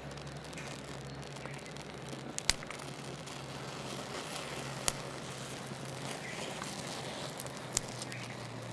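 Steady low background noise with a faint low hum, broken by a few sharp single clicks, three in all.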